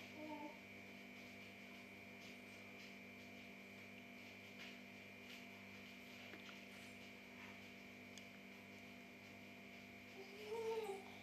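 Near silence: a faint steady electrical hum, with a few faint soft rustles and, near the end, a short rising vocal squeal.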